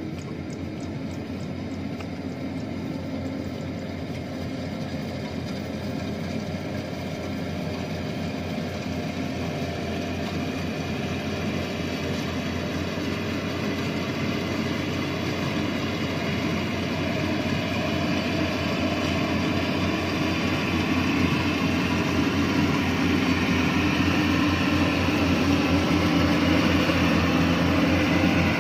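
Yanmar YH850 rice combine harvester running steadily while cutting and threshing, its diesel engine and machinery droning. The sound grows gradually louder as the machine draws closer.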